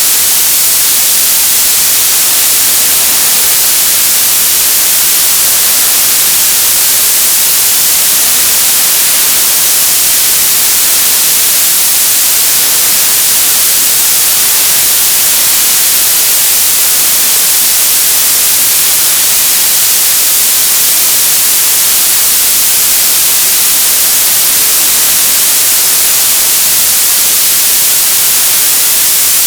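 Television static: a steady, loud hiss of white noise, brightest in the high frequencies, unchanging throughout.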